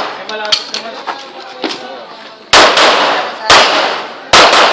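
Three handgun shots about a second apart in the second half, each a loud, sharp crack.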